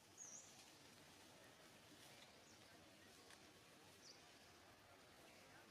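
Near silence, broken by two faint, short, high-pitched chirps: one near the start and another about four seconds in.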